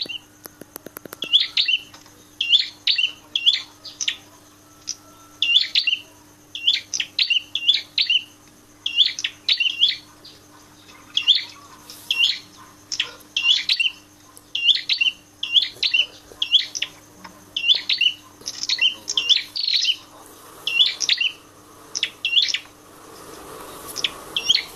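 Caged prenjak kepala merah songbird giving short, sharp chirps, repeated in quick clusters of two to four, with a faint steady hum beneath.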